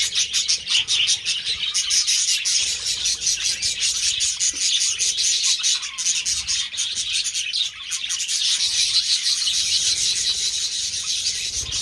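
Budgies chattering without a break, a dense stream of warbling and many short, sharp chirps.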